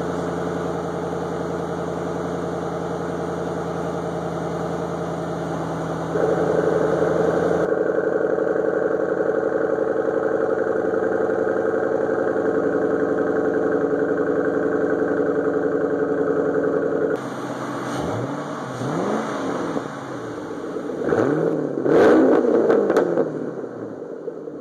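A 2009 Ford Mustang Bullitt's 4.6-litre V8 idles steadily through its factory mufflers, then louder through Ford Racing FR500S KR aftermarket mufflers. In the last part the engine is blipped a few times, the pitch rising and falling with each rev.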